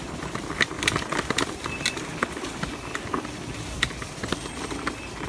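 Electric scooter rattling and clattering over a rough dirt trail: irregular sharp knocks and clicks from the frame and deck jolting over bumps, over a low rumble of tyres and wind.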